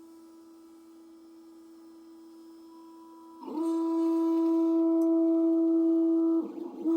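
Creality CR10 S5 3D printer's stepper motors whining a steady single-pitched tone as the print head moves. The tone is faint at first, turns loud about three and a half seconds in, and breaks off briefly near the end before resuming at the same pitch.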